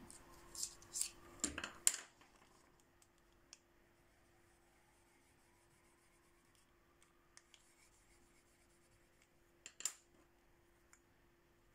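Wooden coloured pencils clicking and clattering against each other as they are handled, then faint light strokes of a pencil drawing on paper, and a short clatter about ten seconds in as a pencil is set down on the wooden table.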